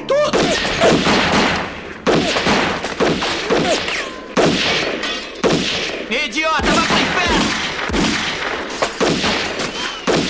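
Gunfire in quick runs of shots from a handgun and a submachine gun, with voices shouting over it.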